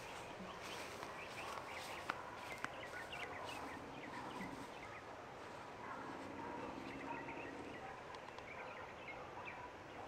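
Faint outdoor background with small birds chirping here and there, and two small clicks a little after two seconds in.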